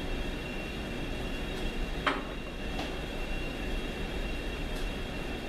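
Steady machine hum with a thin high whine in the workshop, and a sharp click about two seconds in followed by a few fainter ticks.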